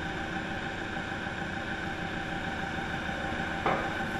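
Forklift engine running steadily while it lifts a load on chains. One short knock about three and a half seconds in.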